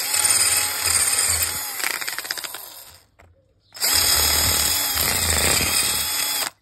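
FERM cordless drill boring into a roughcast rendered masonry wall, in two runs: the first fades out about three seconds in, and after a half-second pause the second starts and stops suddenly. These are the two mounting holes being drilled.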